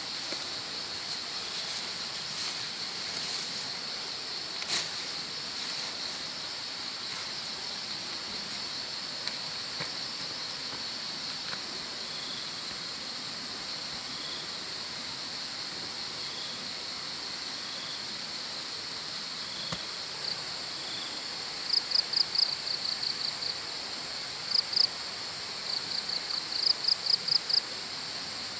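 Forest insects buzzing steadily at a high pitch over an even hiss of outdoor ambience. From about two-thirds of the way through, loud, rapid high chirps come in short bursts of four or five.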